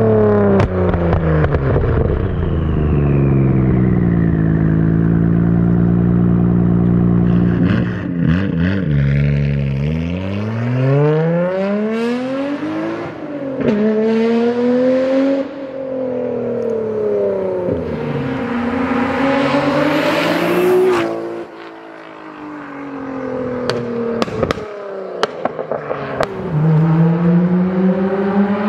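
Nissan Skyline GT-R R33's RB26 twin-turbo straight-six accelerating hard through a Tomei titanium exhaust. The pitch climbs through each gear and drops at every shift, with a few sharp pops between pulls and a rush of hiss about two-thirds through before the note falls away.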